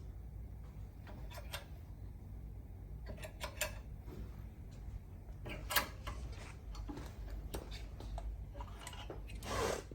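Scattered metallic clicks and taps of brake pads and rear caliper parts being handled and fitted, over a steady low hum, with a short swish near the end.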